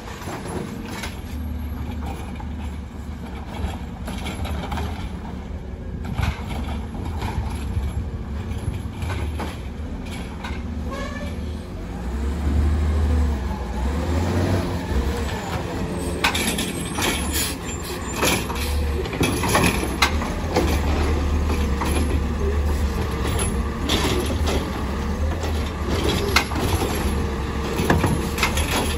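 Automated side-loader garbage truck, a Heil Rapid Rail on a CCC chassis, running and driving along the street between pickups. Its engine drones low and grows louder from about halfway as it comes closer, with its pitch rising and falling and brief air brake hisses.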